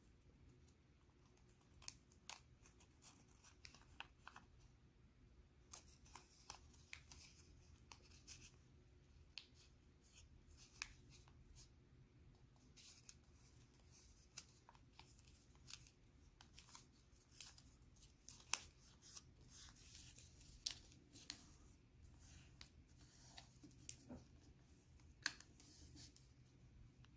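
Origami paper crinkling and crackling as it is folded and creased by hand: scattered, irregular sharp paper clicks over a faint low hum.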